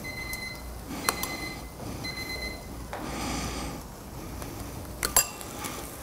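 Electric contact grill's timer alarm beeping: a high electronic beep repeated about once a second, stopping about two and a half seconds in. A sharp clink about a second in and another about five seconds in.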